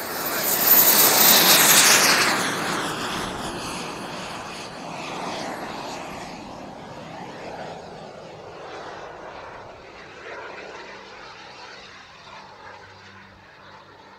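Model jet's turbine engine at full power with a thin high whistle, loudest about a second in as the jet takes off past, the whistle dropping a little in pitch as it goes by. The sound then fades steadily as the jet climbs away.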